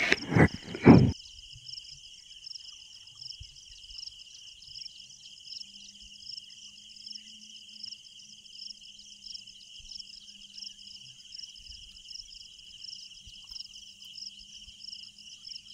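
Insects trilling in a steady, high-pitched chorus on two pitches, with a brief louder noise in the first second.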